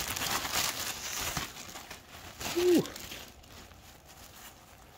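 Thin clear plastic garment bag crinkling as it is torn open and the scrubs top is pulled out of it, fading after about two seconds. A brief hum-like pitched sound comes a little past halfway.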